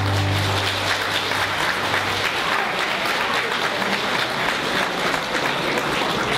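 Audience applauding steadily, with the last low held note of the performance's backing music dying away about two seconds in.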